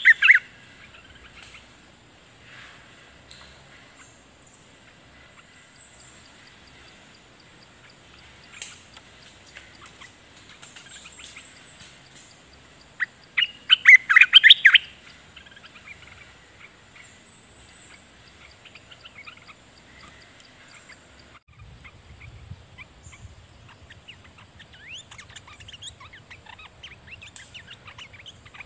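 Streak-eared bulbuls calling: a loud burst of chattering calls right at the start and another about halfway through, with softer scattered chirps between them and many faint quick chirps near the end.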